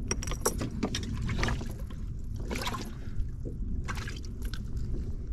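Scattered light clicks and small rattles of a metal cull clip being handled and fitted, over a steady low rumble.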